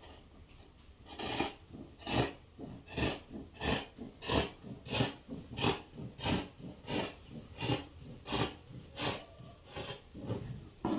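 Scissors cutting through printed fabric in a steady rhythm of snips, about one cut every 0.7 seconds, starting about a second in.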